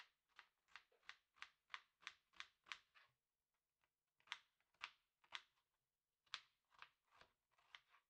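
Faint, crisp clicks in quick runs of about three a second, broken by two short pauses.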